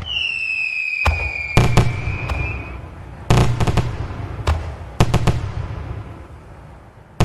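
Aerial fireworks: a shrill whistle that falls slightly in pitch over the first few seconds, then a string of sharp bangs in clusters about a second or two apart, each trailing off in crackle.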